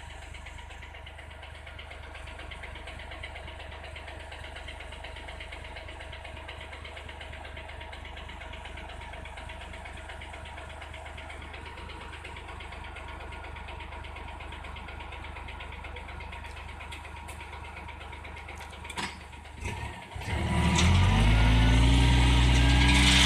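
Diesel engine of a loaded ten-wheel dump truck idling steadily. About twenty seconds in there are a few short clicks, then the engine revs up and holds at high speed as the hydraulic hoist starts tipping the bed to dump the stones.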